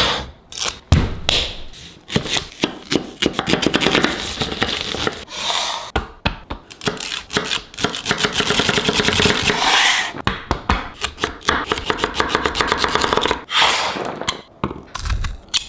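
Chef's knife chopping vegetables (celery, carrots) on a wooden cutting board: runs of quick knife strikes, several a second, with stretches of scraping between them.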